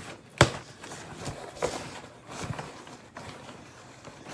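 A sharp knock about half a second in, then scattered softer knocks and rustles, as of objects being handled.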